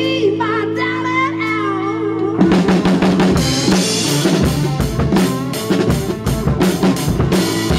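A rock song's singing line over held notes, then about two and a half seconds in an acoustic drum kit comes in hard with the band: kick drum, snare and cymbals struck with sticks in a driving rhythm.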